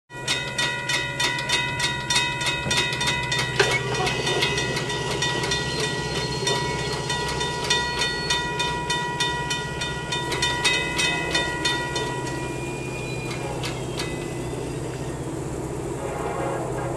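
Sound of an approaching CSX freight train. A steady low rumble runs throughout, under a metallic ringing of about three strokes a second. The ringing stops about twelve seconds in.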